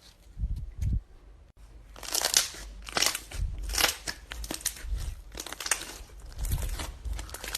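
Slime being squeezed and pressed by hand, giving a run of crackling crunches about once or twice a second that starts about two seconds in, after a couple of soft low squishes.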